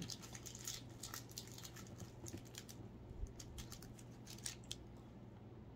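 Faint crinkling of a plastic snack wrapper being handled and opened, as many small irregular ticks and clicks.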